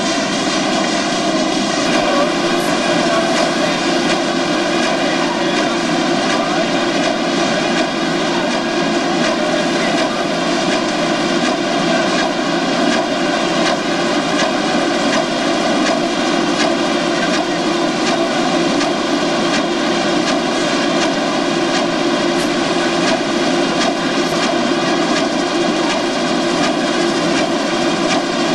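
Corrugated box-making machine running with its RollvaC vacuum lead-edge feeder: a loud, steady mechanical drone that does not change.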